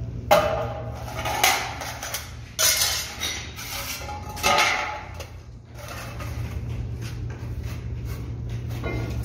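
Metal clanking and clattering, four sharp hits in the first five seconds, over a steady low hum.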